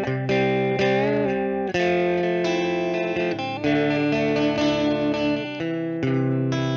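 Electric guitar played through an Orange Crush 12, a 12-watt combo amp with a 6-inch speaker: sustained chords that change every second or so, with one note bent and wavering about a second in.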